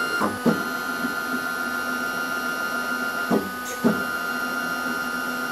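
NEMA 23 stepper motors on a Taig 5019CR CNC mill moving the table along its ball screws on the mill's first powered test: a steady whine, with short sliding pitch sweeps as each move starts and stops, twice near the start and twice past the middle.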